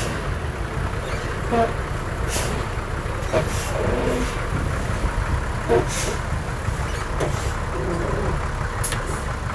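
Heavy diesel earthmoving machinery running with a steady low engine rumble, with a few sharp metallic clanks and short squeaks from the working machine.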